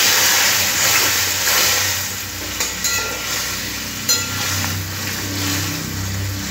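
Water hissing and sizzling as it hits the hot metal wok of fried drumsticks, potatoes and spice paste, loudest at first and easing after about two seconds. A metal spatula stirs through the thin curry, clicking against the pan a couple of times.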